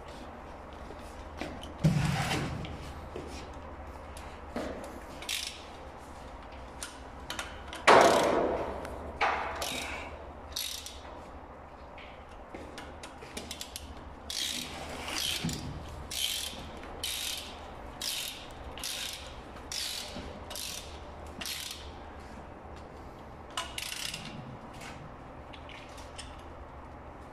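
Ratchet wrench clicking in short runs as bolts on a high-voltage cable termination head are tightened, with two louder knocks in the first third.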